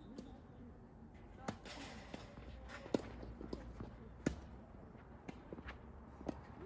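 Tennis ball bouncing on the court, a series of separate sharp knocks about every second or so, with footsteps between them.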